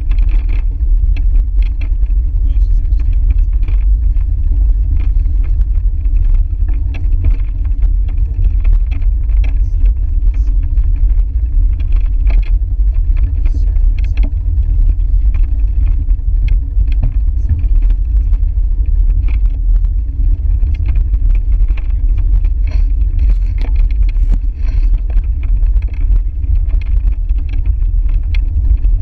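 Loud, steady low rumble of wind buffeting the microphone of a camera mounted on a moving bicycle, mixed with tyre and road noise.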